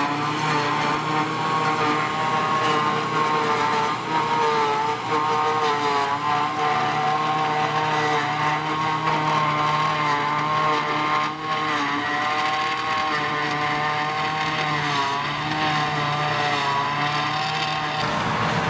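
A John Deere tractor engine running steadily under load, driving a trailed forage harvester that chops grass and blows it into a trailer. The engine and the chopper make a continuous, slightly wavering hum of several tones.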